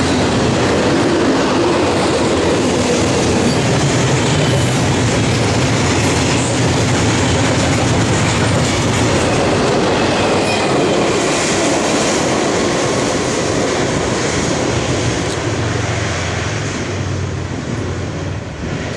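Double-stack intermodal freight train's well cars rolling past, a steady rumble of steel wheels with clickety-clack over the rail joints, fading over the last few seconds as the end of the train goes by.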